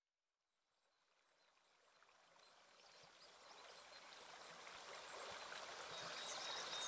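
Near silence, then the sound of running water fades in about two seconds in and grows steadily louder, with faint high chirps over it.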